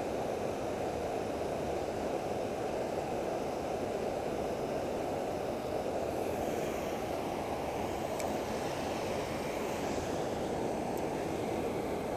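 Creek water pouring over a low concrete dam: a steady rushing, with two faint ticks in the second half.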